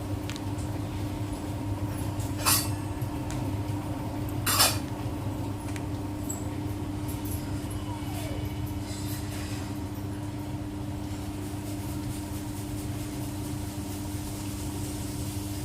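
Siemens iQ 700 washing machine running with a steady hum, broken by two sharp metallic clinks in the first five seconds. This is the machine's noise fault, which calls for a drum replacement.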